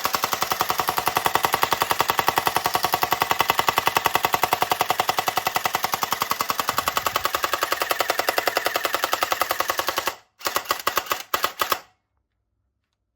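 Toy gun firing a fast, even machine-gun rattle. It breaks off about ten seconds in, comes back in two short bursts, then stops.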